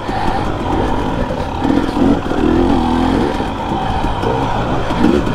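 Dirt bike engine being ridden, its pitch rising and falling repeatedly as the throttle opens and closes.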